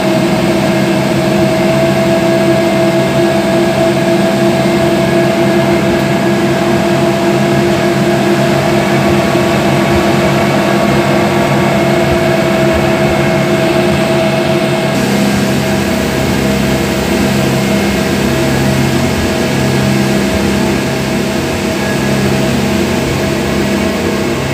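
Three Suzuki 250 HP V6 four-stroke outboard motors running at full throttle, a loud, steady drone of several held tones over a rush of noise. The mix of tones changes about fifteen seconds in.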